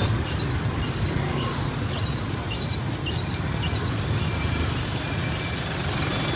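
Street traffic: a steady rumble of passing motorbikes and cars, with a few short high chirps over it.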